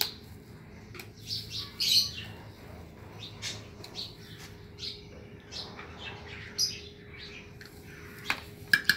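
Pet lovebirds chirping in short, scattered, high-pitched calls. A few sharp clinks come in near the end.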